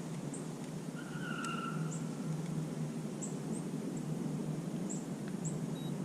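Outdoor ambience: a steady low background hiss with short, faint high-pitched chirps every second or so, and a brief faint tone about a second in.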